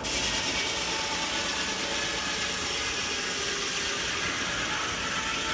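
Large steam-engine-driven sawmill running, a steady, loud mechanical noise with hiss reaching high up and faint steady tones through it.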